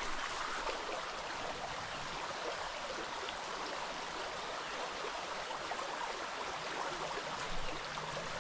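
Steady rush of a small mountain trout stream's running water.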